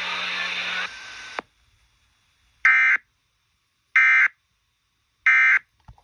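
Broadcast audio cuts off about a second in. After a short silence come three loud, buzzy data bursts about 1.3 s apart: the SAME header of an Emergency Alert System alert from the station's EAS encoder, heard through a portable FM radio's speaker.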